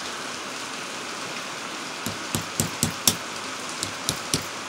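Light metallic taps and clicks on a small transformer's stacked steel core laminations as they are knocked and worked loose, about eight in quick, uneven succession starting about two seconds in.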